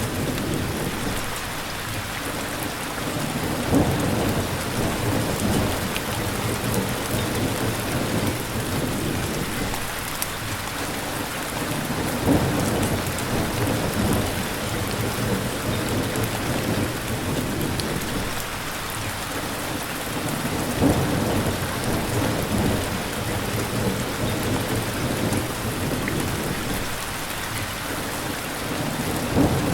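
Steady heavy rain hissing, with low rumbles of thunder swelling and fading about every eight or nine seconds.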